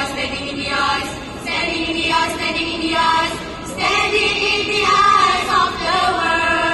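A group of schoolgirls singing together in chorus, a melody with held notes, as the sung passage of a choral speaking piece.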